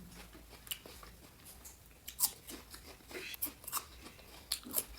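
Someone chewing crisp raw fruit at close range: irregular crunches and smacks, several of them clustered in the second half.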